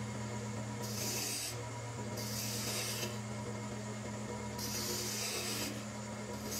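Wood lathe running with a steady hum while a turning tool cuts green arbutus at the goblet's foot: three hissing cutting passes of about a second each, as shavings come off.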